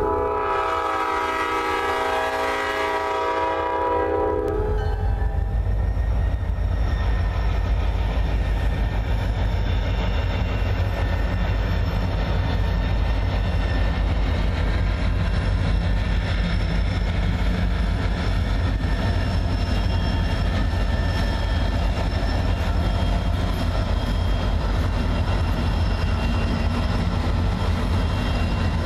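A diesel locomotive air horn sounds, cutting off about four seconds in. Then comes the deep, steady rumble of approaching EMD SD40-2 diesel locomotives, their two-stroke V16 engines working as they pull a freight train, growing a little louder as they near.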